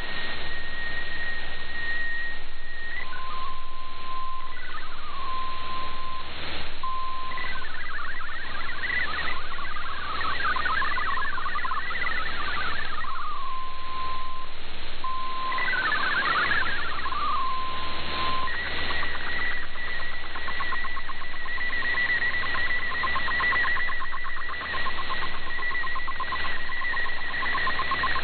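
MFSK digital-mode data tones received over shortwave radio. A steady whistle tone ends about three seconds in, and a passage of rapidly hopping tones carries text. From about eighteen seconds a steady high tone with a fainter lower one sounds as an image transmission begins.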